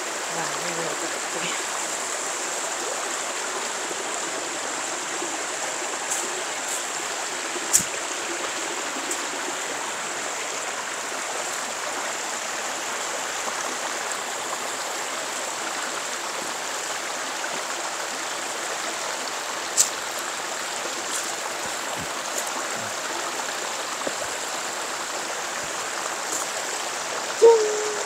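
Shallow rocky mountain stream flowing over stones, a steady rushing of water, with a couple of sharp knocks about eight and twenty seconds in.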